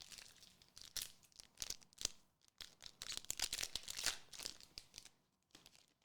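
A trading-card booster pack wrapper being torn open and crinkled by hand, a rapid run of crackling rips that stops about five seconds in.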